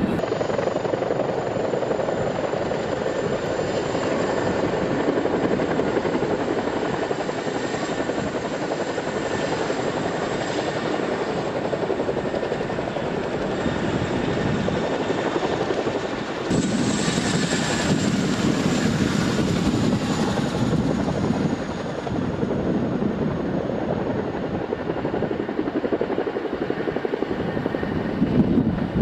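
Boeing CH-47 Chinook tandem-rotor helicopter running close by at low hover: steady rotor and turbine noise with a thin high whine. About halfway through the sound changes abruptly, with more hiss for a few seconds.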